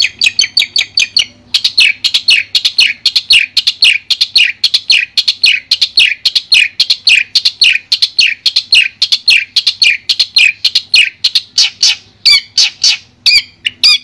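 Long-tailed shrike (cendet) singing a fast run of sharp chirps, each sliding down in pitch, about four a second. There is a brief break a little over a second in, and looser, more varied notes near the end. A faint steady hum runs underneath.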